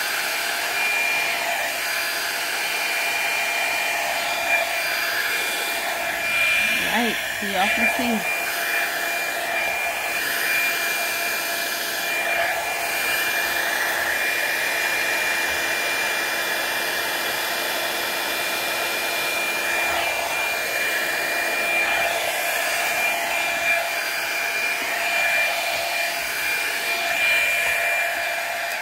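Revlon One-Step hair dryer brush running steadily as it is worked through the hair: a constant rush of blown air with a high whine over it. It cuts off at the end.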